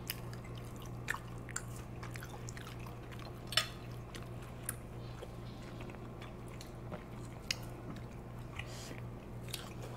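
Faint chewing of food with a few small scattered clicks, over a steady low hum.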